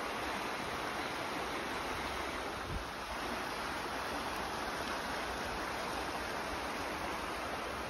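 Fast-flowing shallow river rushing steadily over stones.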